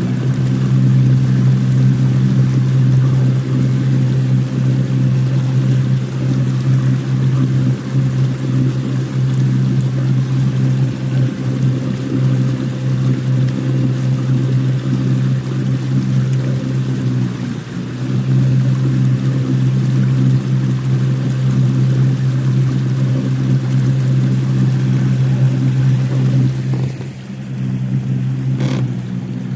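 Inflatable boat's outboard motor running steadily under way, a low even hum over water rushing past the hull. The hum dips briefly twice, and there is a single click near the end.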